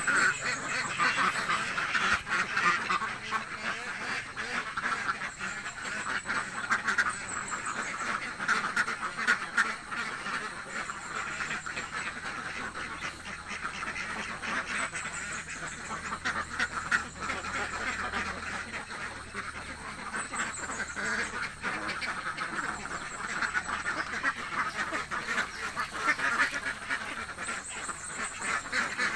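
A flock of ducks quacking continuously, many calls overlapping with no break; the ducks are hungry.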